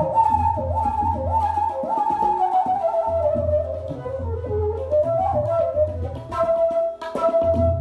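Bamboo flute playing a classical Indian melody, with a run of short rising phrases that then wind downward, and a long held note near the end, accompanied by tabla: quick finger strokes and the deep, resonant strokes of the bass drum.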